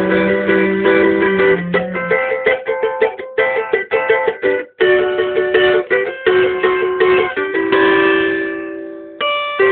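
Instrumental pagode music: plucked string instruments play quick picked notes and chords over a held low note, with a brief break about halfway through.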